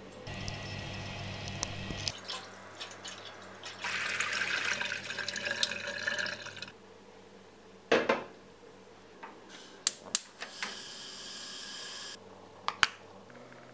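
Water running from a cross-head tap into a steel saucepan until the tap is turned off. Then comes a single knock, a few sharp clicks and a short hiss as a gas hob burner is lit, with two more clicks near the end.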